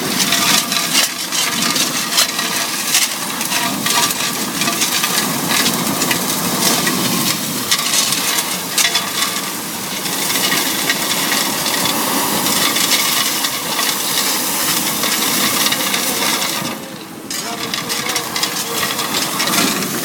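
Huge industrial vacuum train sucking up debris: a loud, steady rush of air with a dense clatter of hard pieces rattling through the suction pipe, dipping briefly near the end.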